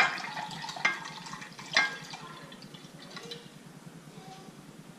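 Liquid strawberry Jello mixture being spooned and poured into a bowl, trickling and splashing, with three ringing clinks of the spoon against the bowl in the first two seconds.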